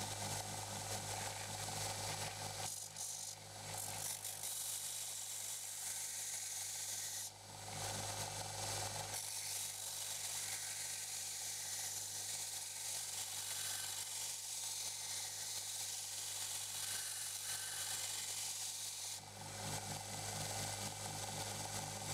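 Belt grinder motor running with a steady hum while a steel knife blade cut from a reciprocating saw blade is ground on the belt. The harsh grinding hiss starts about three seconds in, breaks off briefly around seven seconds, then runs on again until near the end.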